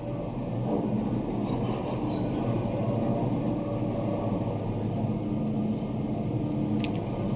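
Otis traction elevator car travelling down its shaft: a steady rumble of the cab in motion with faint humming tones, and a single sharp click near the end.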